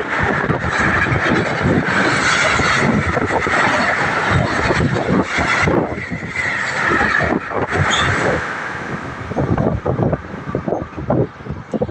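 A train passing close by at speed: steady rushing rail noise with rapid wheel knocks. It thins out into separate clacks and fades over the last few seconds as the end of the train goes past.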